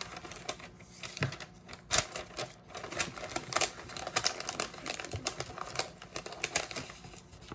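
Irregular clicks, taps and rustles of small packaged hair accessories being handled and put back into a cardboard box, the sharpest tap about two seconds in.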